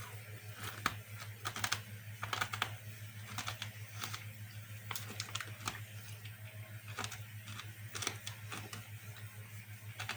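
Someone chewing hard, crunchy pork scratchings: a run of irregular sharp crunches, over a steady low hum.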